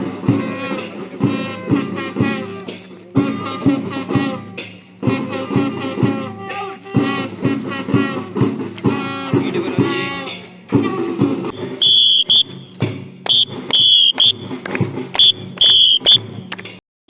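Patriotic-style song with a singing voice over a steady beat. In the last few seconds it gives way to a run of short, shrill high tones.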